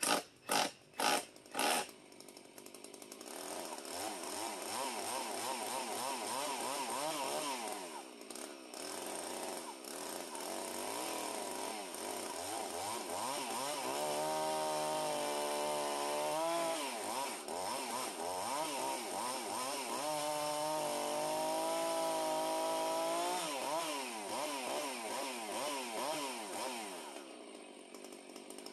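A few sharp knocks in the first two seconds, then a small chainsaw runs and cuts through the end of a 2x4 board, its pitch wavering with the load and loudest in two stretches, before stopping near the end.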